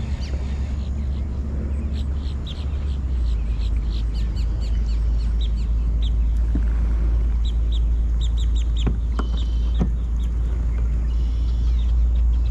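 Birds chirping in many short, high notes over a steady low rumble, with two sharp knocks near the end.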